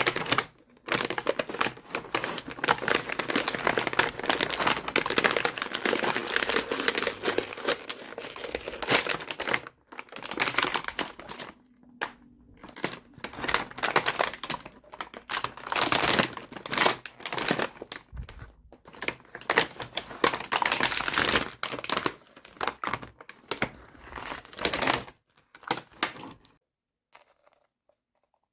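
Plastic packaging crinkling and rustling, with many quick clicks of small plastic pieces being handled during a toy unboxing. It stops abruptly about two seconds before the end.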